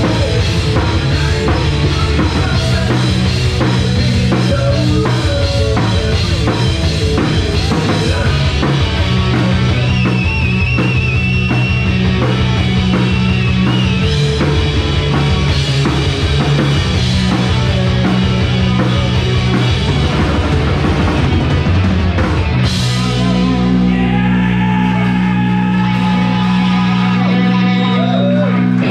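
Live rock band playing loud on electric guitars, bass and drum kit. About 23 seconds in the drums stop on a final hit, and the guitars and bass ring on with held chords.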